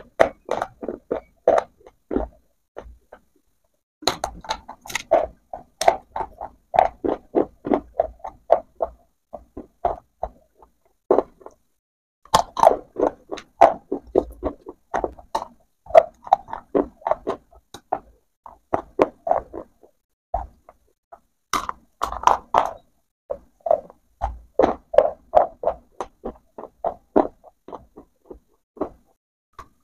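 Close-miked crunching and chewing of rolled clay pipes in the mouth: quick runs of crisp crunches, several a second, with brief pauses between bites.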